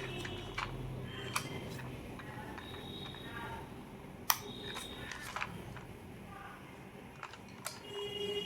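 Scattered sharp plastic clicks and taps from a toy car being handled, with brief faint high tones between them.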